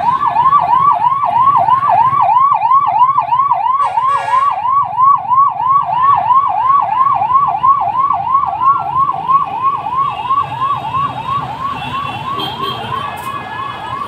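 Ambulance siren sounding a fast yelp, about three rising sweeps a second, repeating evenly and growing a little fainter over the last few seconds.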